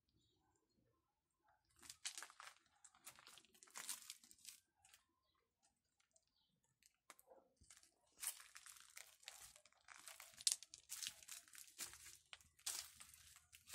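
Footsteps crunching through dry fallen leaves and pebbles, in two stretches of irregular crackling steps with a quiet gap between them.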